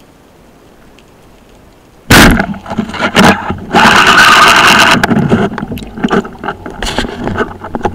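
Speargun fired underwater about two seconds in, a sudden loud crack picked up through the camera mounted on the gun. It is followed by several seconds of loud rattling, scraping and knocking as the speared dentex struggles on the shaft.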